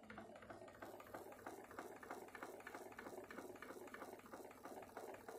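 Homemade pulse-driven magnet motor with a heavy flywheel running, giving a faint, rapid, even ticking.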